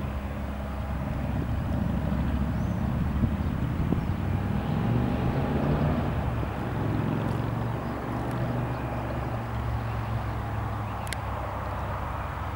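Cessna 172R Skyhawk's four-cylinder Lycoming piston engine and propeller droning in the climb after takeoff, the pitch sliding a little midway as the plane moves relative to the listener.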